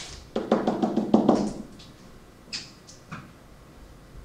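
A stylus knocking and tapping against an interactive whiteboard as lines are drawn: a sharp click, then a quick run of about a dozen knocks over a second or so, and a couple of lone clicks later.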